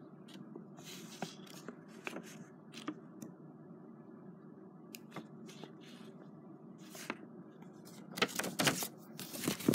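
Paper rustling and handling noises from a book's pages being held and moved, a few scattered soft rustles and clicks over a low steady hum, growing louder and busier near the end.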